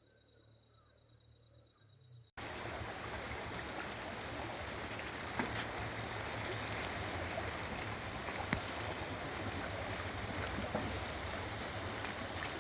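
A faint steady high whine for about two seconds, then an abrupt cut to the steady rush of flowing river water, with a couple of brief knocks.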